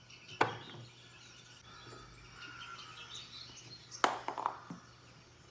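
A wine cork knocked over by a cat's paw, clattering and bouncing a few times on a wooden TV stand about four seconds in, after a single sharp knock about half a second in. Faint bird chirping from the TV's nature footage in between.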